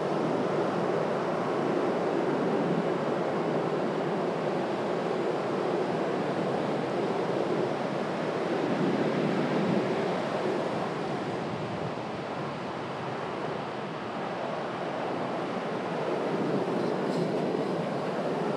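Steady rushing noise of sea surf breaking on a sandy beach.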